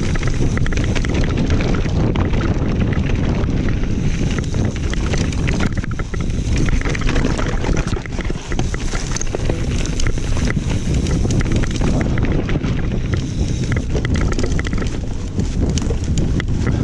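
Mountain bike descending a rocky trail at speed: wind buffeting the microphone over the rumble of tyres on stones, with frequent rattles and clicks from the bike as it bounces over the rocks.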